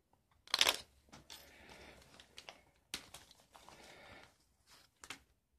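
Thin plastic coin flip crinkling and rustling as gloved hands open it and slide out a silver dollar. There is a loud rustle about half a second in and a sharp tick near three seconds.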